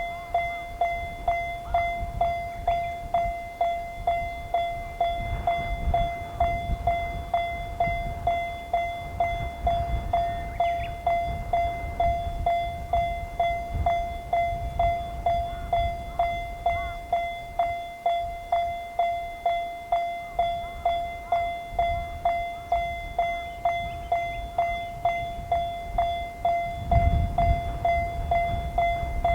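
Japanese level-crossing warning bell ringing its repeated 'kan-kan' at an even pace of about one and a half strikes a second, each strike a single clear tone that fades quickly: the crossing is active, warning that a train is coming. Under it a low rumble grows heavier near the end.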